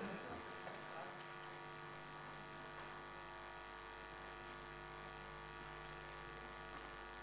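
Steady electrical hum made of several constant tones, at a low level.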